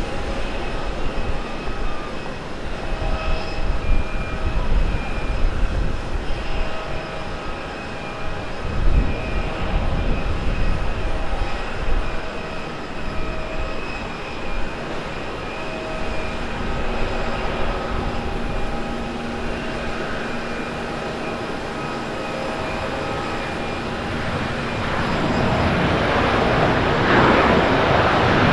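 Airbus A330-200 airliner with Rolls-Royce Trent 700 engines landing: a steady engine hum with a faint whine on approach. Near the end, after touchdown, the engine noise swells into a louder, broad rush as the aircraft rolls down the runway.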